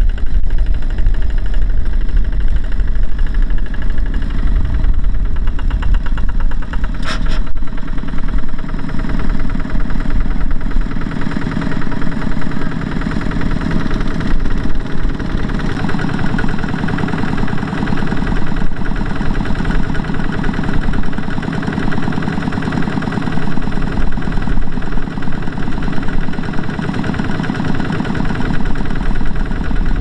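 Single-cylinder diesel engines of two-wheel walking tractors running steadily, a fast even chugging, with one brief sharp clank about seven seconds in.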